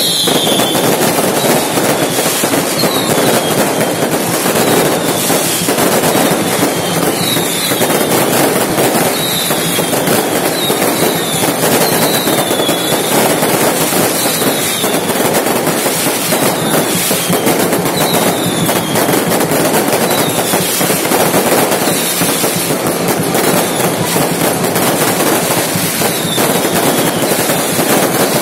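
Fireworks and firecrackers going off in a dense, continuous crackling barrage, with short falling whistles every second or two.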